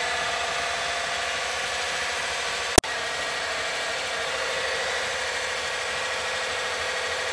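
Motor-driven grain mill running steadily at a constant pitch. A single sharp click sounds nearly three seconds in.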